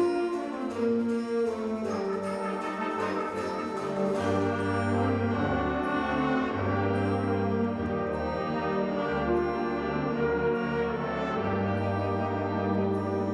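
School wind ensemble playing a concert piece, with brass including French horns and trombones holding chords. A steady tapping from the high percussion runs through the first four seconds, then low brass notes come in strongly underneath.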